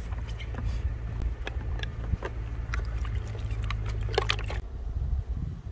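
Scattered light clicks of a plastic snuffer bottle and a plastic gold pan being handled while gold is sucked up from the pan, over a steady low rumble that drops away near the end.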